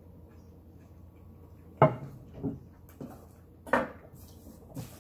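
A plate knocking and clattering against a wooden cutting board as it is set down and handled. It is a handful of sharp knocks starting about two seconds in, the first the loudest.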